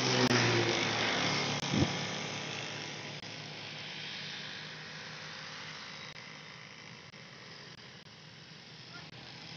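A passing motor vehicle's engine, fading steadily away until it is faint.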